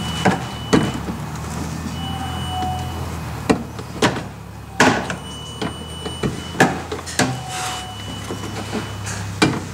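Plastic push-in trim clips being pried out of the underside of a Jeep Gladiator's plastic front bumper with a trim tool, giving about ten sharp clicks and snaps at irregular intervals over a steady low hum.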